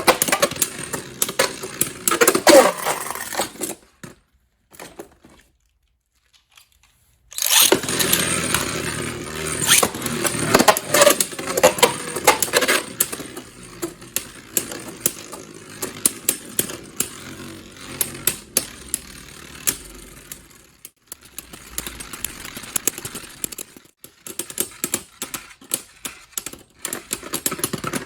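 Beyblade spinning tops whirring and clattering, with many sharp clicks as they collide. The sound breaks off about four seconds in and starts again suddenly at full level about three seconds later, with the clicking gradually thinning out.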